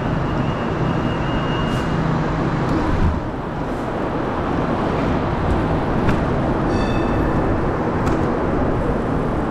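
Road traffic and wind noise heard from a moving bicycle: a dense, steady rush with a short high-pitched tone about seven seconds in.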